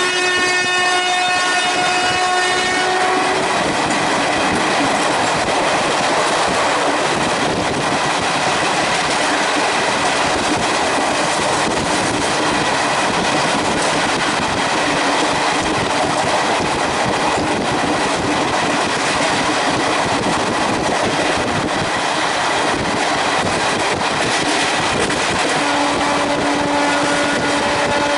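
Express train hauled by a WAP4 electric locomotive running at speed: a steady rush of wheels on track, with a horn blast that stops about three seconds in. Near the end another, lower horn note starts and holds.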